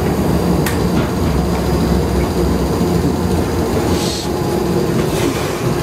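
Replica Birney heritage streetcar heard from inside the car as it runs: a steady low rumble of the car on its rails. A sharp click comes about two-thirds of a second in, and a short hiss about four seconds in.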